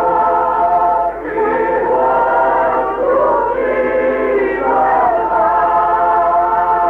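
Choir singing a Christmas song in long held notes, with a short breath about a second in.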